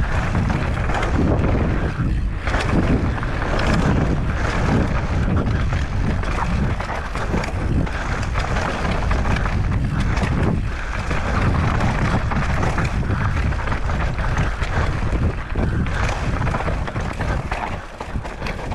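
Mountain bike descending a rough natural trail: wind rushing over the microphone, with tyre noise and frequent knocks and rattles from the bike over the bumps.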